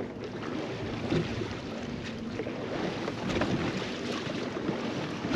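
Wind on the microphone and water lapping against a drifting fishing boat's hull, with a few small knocks.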